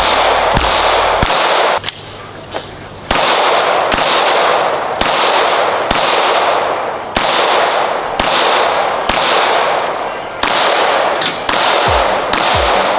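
Pistol fired in a string of single shots during a timed match stage, roughly one shot a second, each loud crack followed by a short wash of echo.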